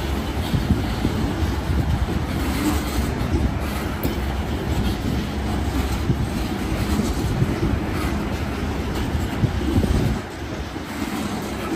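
Wheeling & Lake Erie freight train rolling past, its cars' wheels clattering over the rails in a loud, steady rumble that drops a little about ten seconds in.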